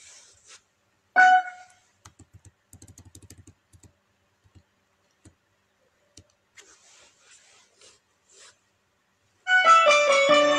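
A short electronic beep about a second in, then a quick run of soft taps and faint rustling. About a second before the end, music starts playing loudly: the backing music for a song.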